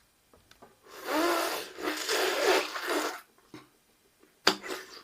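Plastic packaging of a jelly snack rustling and rasping for about two seconds as it is handled and opened, then one short sharp click near the end.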